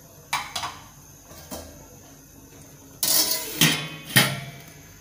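Steel lid being set onto a stainless steel cooking pot: a few light metal clinks in the first couple of seconds, then a scraping clatter about three seconds in that ends in two sharp clanks with a short ring.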